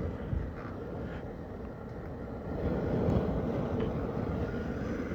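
Shop heater starting up to warm a cold paint area, a steady rushing noise that grows louder about two and a half seconds in as it gets going.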